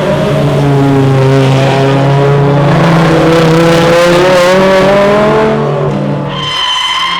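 Racing car engine at full throttle, rising in pitch, then dropping away at about six seconds. Near the end a high-pitched tyre squeal starts.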